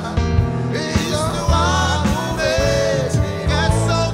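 Live worship band playing a song: a sung lead vocal over a Roland RD-700 stage piano, bass guitar and drum kit, with regular drum hits.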